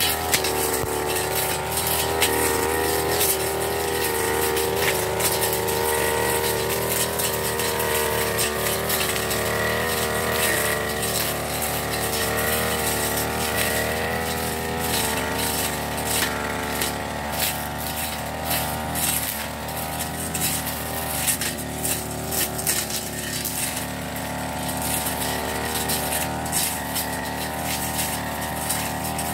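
Backpack brush cutter's small engine running at high speed, its pitch wavering as the cutting head swings through grass and weeds, with many short ticks and clicks.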